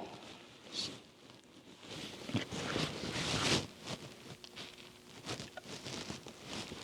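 Hand work on a steering knuckle's seal and retainer: light scraping and rustling, with a few small sharp clicks near the end.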